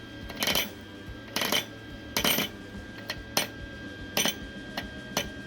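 Roller chain clacking against a nylon tensioner roller as it turns, about one sharp clack a second over a steady mechanical hum. The chain is hitting a small step in the plastic roller, a misalignment the owner expects to wear in.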